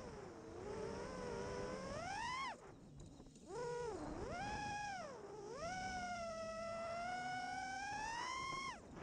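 Brushless motors and propellers of a 5-inch FPV freestyle quadcopter whining, the pitch sweeping up and down with the throttle. The whine drops out for about a second around two and a half seconds in, and again briefly near the end, as the throttle is chopped.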